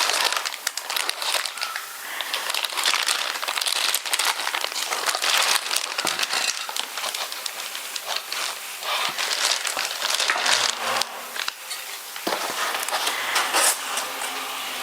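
Packaging crinkling and rustling in irregular handfuls as the parts of a new pressure-cooker set are handled and unwrapped.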